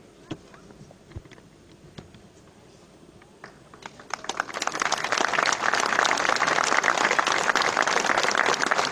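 Audience applauding: a few quiet seconds with scattered small clicks, then clapping starts about four seconds in, builds within a second and carries on steadily.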